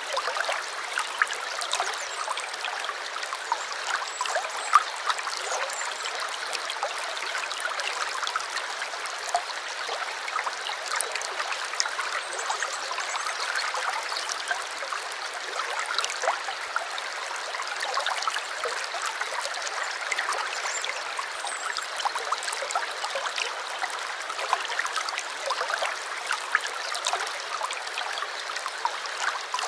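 A small stream trickling and babbling steadily, with many small splashes and drips scattered through it.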